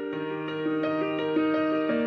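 Slow, gentle instrumental background music of held notes, with no speech.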